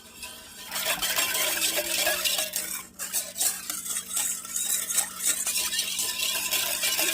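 A spoon stirring a bowl of cucumber salad, a continuous scraping and clinking of utensil against the bowl that starts about a second in.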